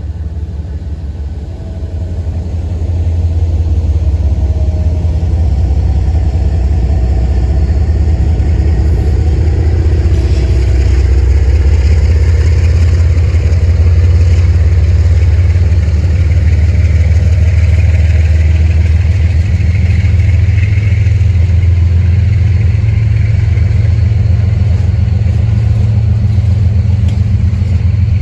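Diesel freight locomotives running past at close range: a steady low engine drone that swells over the first few seconds and then holds.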